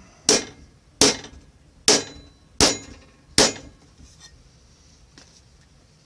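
A hammer striking thin painted sheet metal laid on a sandbag, five sharp blows just under a second apart that bash dents into the sheet, then stopping about three and a half seconds in.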